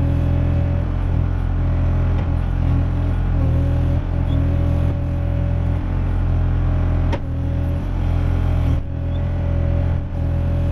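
Kubota KX040 mini excavator's diesel engine running steadily under load, with a hydraulic whine that drops out briefly a few times as the boom and bucket move. One sharp clack about seven seconds in.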